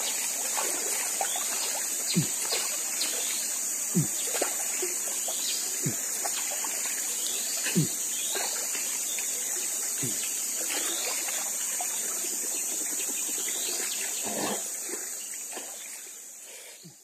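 River water flowing and trickling steadily, with a soft low falling note about every two seconds for the first ten seconds. The sound fades out near the end.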